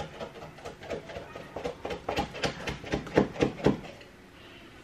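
Small spatula scraping and tapping in a cake pan as a creamy topping is spread over a cake, in quick uneven strokes that stop about four seconds in.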